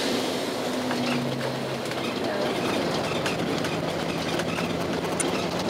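Steady running noise of a moving bus heard from inside, with a low engine hum that shifts pitch a couple of times and light rattles.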